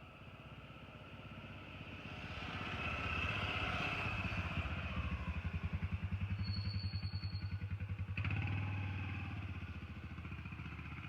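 A motor vehicle's engine running with a fast, even low throb, growing louder over the first few seconds and easing off toward the end.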